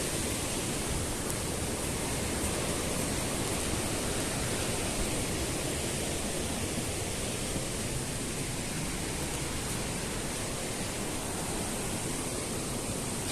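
Steady rushing of water in a mountain gorge: the continuous, even noise of a waterfall or torrent.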